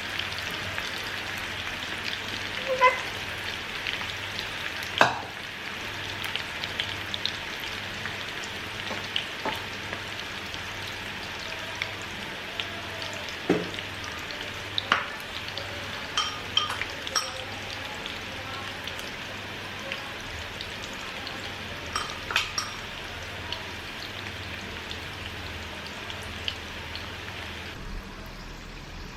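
Parwal (pointed gourd) slices coated in rice flour and besan batter deep-frying in hot oil on a low flame: a steady sizzle with scattered pops and crackles, and a few sharp knocks. The sizzle quietens near the end.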